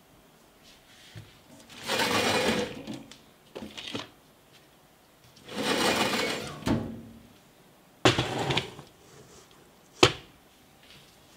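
Metal cabinet drawer sliding on its runners twice, each slide about a second of scraping rumble. Then a plastic parts organizer box is set down on the bench with a clatter, and a single sharp click from the box about ten seconds in.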